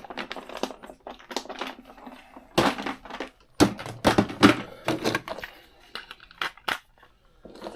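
Two AA batteries being pushed into the plastic battery compartment of a cheap RC transmitter, with a run of irregular plastic clicks, knocks and rattles as they seat and the cover is handled.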